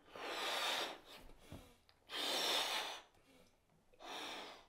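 A person blowing up a latex balloon by mouth: three long, breathy puffs of air into the balloon, with quieter breaths taken in between, the last puff shorter.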